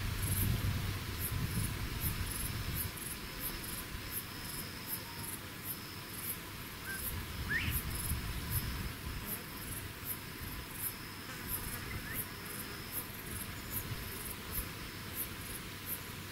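Outdoor insects chirping in a steady, high-pitched rhythm of about two pulses a second, with a single short rising chirp about halfway through and a low rumble in the first couple of seconds.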